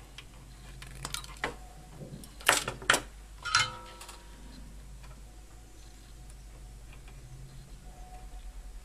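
Side-cutting pliers snipping a replacement transformer's wire terminals: several sharp clicks, the loudest two close together about two and a half seconds in, then a short ringing metallic clink.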